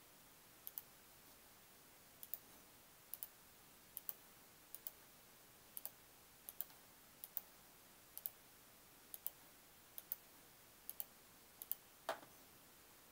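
Computer mouse button clicking about once a second, each click a quick press-and-release pair, with a slightly fuller click near the end.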